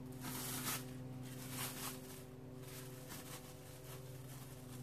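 Clear plastic wrap softly crinkling and rustling as hands wrap a raw minced-meat roll, with a steady low hum underneath.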